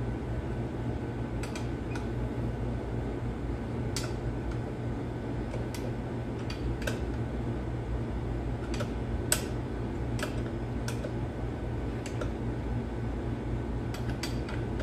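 Scattered sharp metallic clicks and taps of hand tools against the steel timing gears and gear housing of a Cat 3176 diesel engine, the sharpest about nine seconds in, over a steady fan-like hum.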